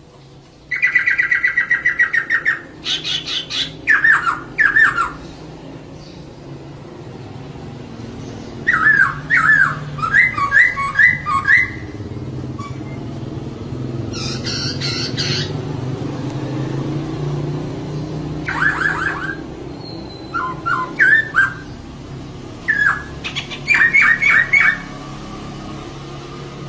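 Female laughingthrush (poksay) calling in loud bursts of quick, repeated chirping notes: a fast trill about a second in, then several short phrases spaced by pauses of a few seconds. A steady low hum runs underneath.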